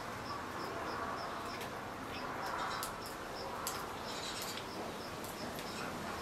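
Outdoor ambience: a short, high chirp repeats about three times a second and stops about halfway through, over a steady background hiss, with a few faint clicks.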